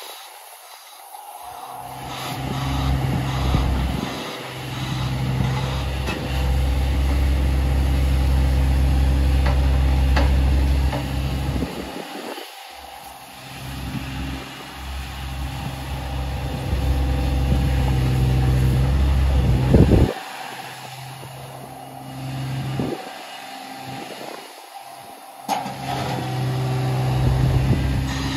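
Komatsu PC26 MR-3 mini excavator's three-cylinder Komatsu diesel engine running while the boom, arm and bucket are worked and the house slews. The engine note swells and drops back several times with the hydraulic load, with a single sharp clunk about two-thirds of the way through.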